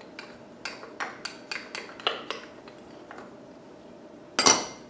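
Wooden spoon tapping against a small dish, knocking chopped garlic into a crock pot: a quick run of light taps, then one louder knock near the end.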